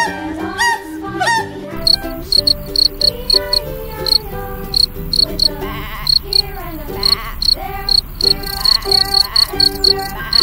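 Field cricket chirping: a run of short, high chirps, several a second with brief pauses, starting about two seconds in over soft background music.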